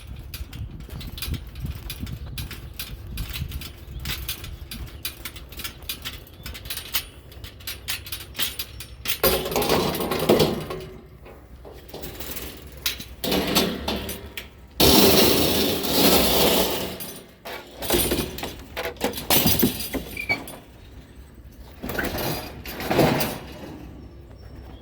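Clattering, knocking and scraping of curbside scrap items being handled and loaded, with several loud bursts of clatter and scraping partway through.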